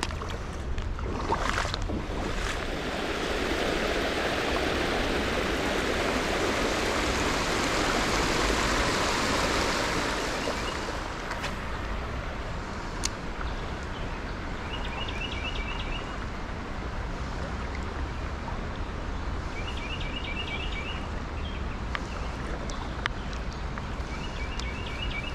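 Steady rush of a shallow creek's flowing water, swelling louder for several seconds in the first half. In the second half a bird sings a short trill of rapid repeated notes three times.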